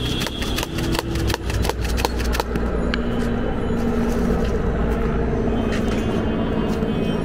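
Jhal muri being mixed in a cup: a quick, dense run of clicks and rattles for about the first two and a half seconds, over steady traffic rumble. From about three seconds a vehicle engine's steady drone takes over.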